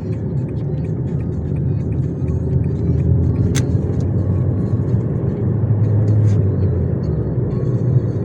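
Worn front-left wheel hub bearing on a 2006 Nissan Almera Classic droning as the car drives: a steady low hum under the road and engine noise, swelling for a while past the middle. A single sharp click about three and a half seconds in.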